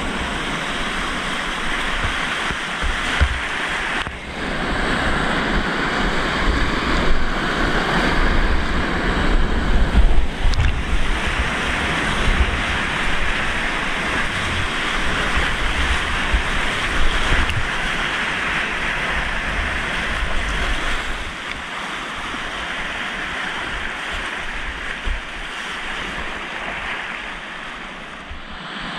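Whitewater rapids rushing loudly around a kayak running through them, with irregular low thumps of water and wind buffeting the microphone. The rush eases off over the last several seconds as the boat reaches calmer water.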